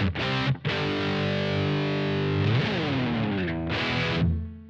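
Fender Stratocaster electric guitar played with distortion on its stock single-coil pickup: sustained chords, one of them sliding down in pitch about two and a half seconds in. The playing fades out near the end.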